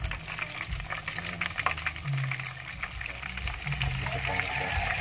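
Flour-coated chicken deep-frying in hot oil, sizzling with a dense crackle as a piece goes into the pan. The sizzle grows louder about four seconds in.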